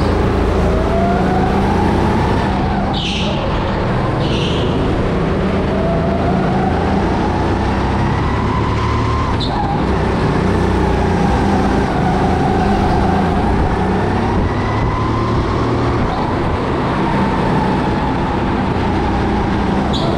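Go-kart heard from the driver's seat while lapping a track: the motor's whine rises and falls in pitch as it speeds up and slows, over a steady low rumble. A couple of short high squeaks come about three and four seconds in.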